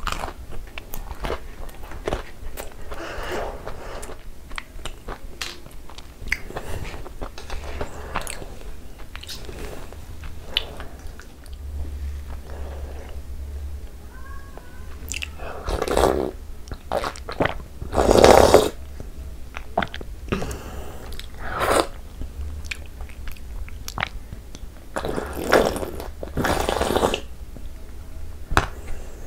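Close-up eating sounds: wet chewing and mouth clicks on soft Indian sweets, with several louder slurps from a bowl of a milky dessert, the loudest about two-thirds of the way through and another run near the end.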